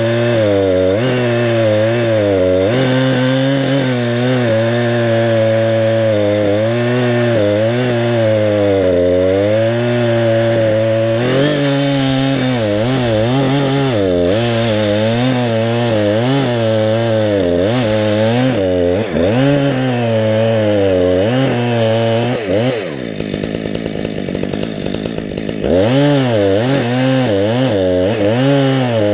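Chainsaw cutting through pine wood, its engine speed wavering up and down under load. About 23 seconds in, the engine drops to a lower, quieter speed for about three seconds, then revs back up into the cut.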